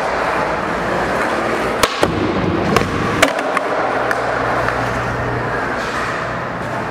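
Skateboard wheels rolling on a smooth concrete floor, the trucks tightened as far as they will go, with several sharp clacks of the board popping and landing between about two and three seconds in.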